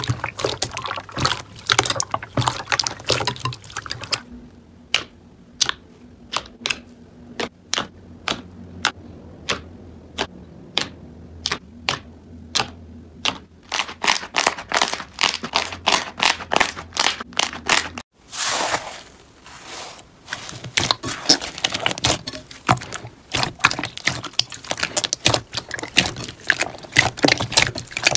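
Hands squeezing and pressing slime in a bowl, making sticky clicks and little air pops. The clicks are dense at first, spaced out for several seconds, then dense again, with a short wet squelch about two-thirds of the way through.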